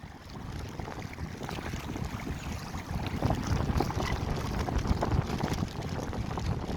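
Wind buffeting the microphone: a steady, gusty low rumble with faint short splashes or calls mixed in.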